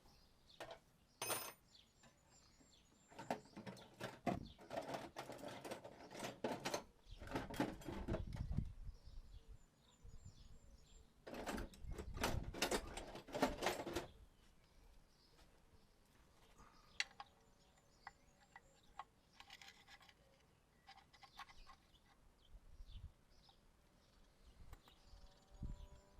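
Metal tools clattering and scraping during hand work on a mini digger's track frame, in two bursts of several seconds each with scattered single clicks after. Faint bird chirps in the background.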